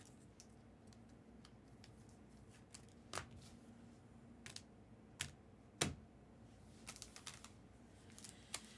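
Near silence with a faint steady hum, broken by scattered light clicks and taps, three of them louder, around three, five and six seconds in.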